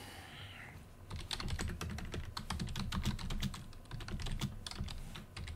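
Typing on a computer keyboard: an uneven run of quick keystrokes starting about a second in.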